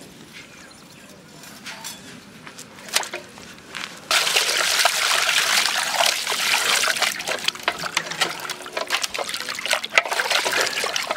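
Water poured from a plastic jug into a metal pot of raw chickens, splashing over the meat while hands scrub and slosh the birds in the water. The pouring starts suddenly about four seconds in.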